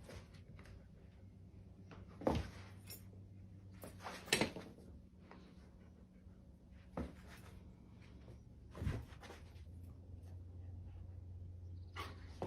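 A dog making about five short, separate sounds spaced a couple of seconds apart, over a faint steady low hum.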